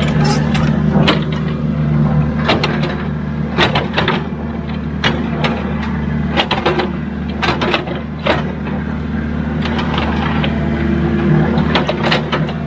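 Excavator's diesel engine running steadily under load, with frequent sharp clanks and knocks as the machine works the ground.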